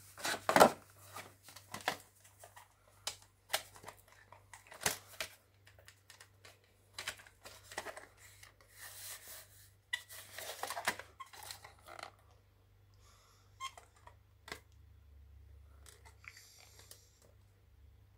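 Plastic VHS cassette shells clacking and cracking as they are handled and one is broken open, with the magnetic tape rustling as it is pulled out. The irregular clatter and scraping fill the first twelve seconds or so, then thin to a few faint clicks.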